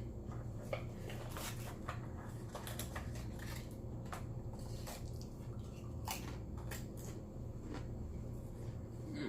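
Close-miked eating: chewing with irregular small clicks and crackles from the mouth and food, over a steady low hum.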